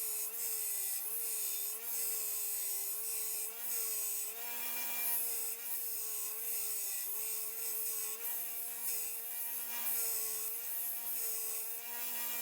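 Power grinder grinding the steel of an old saw blade into a knife's rough shape: a motor whine that wavers slightly up and down over a steady hiss of metal being ground.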